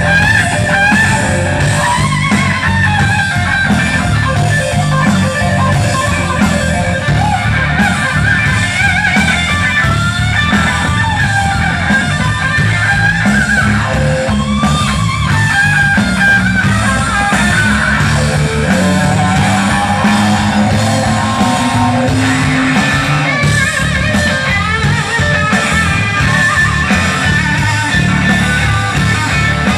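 Live rock trio of electric guitar, bass guitar and drums playing loud and unbroken through a festival PA.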